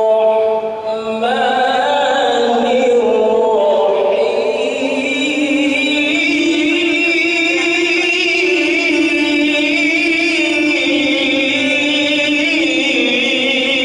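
A man reciting the Quran in melodic tilawah style: long, drawn-out ornamented notes in one sustained phrase, the voice rising in pitch about a second in after a short breath.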